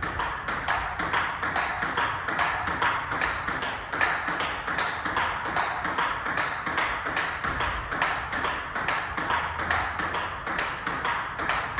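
Table tennis rally: the celluloid-type ping-pong ball clicking off the rackets and the table in a quick, steady back-and-forth, about three to four hits a second.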